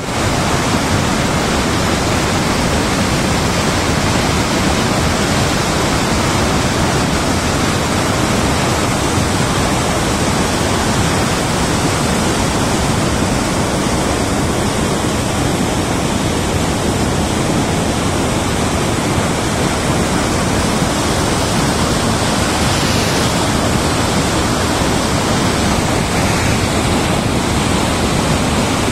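Lift-irrigation pump house outlets discharging, with a steady, loud rush of water pouring from a long row of big delivery pipes and churning into the channel below.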